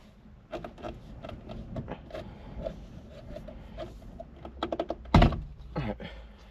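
Clicks and knocks of a plastic steering-wheel horn pad being handled and pushed into place, with a quick run of clicks and then a loud thunk about five seconds in.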